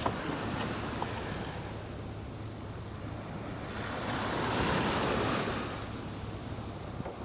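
Sea surf on the beach: a wave builds, breaks and washes up about four seconds in, then dies away, with some wind on the microphone.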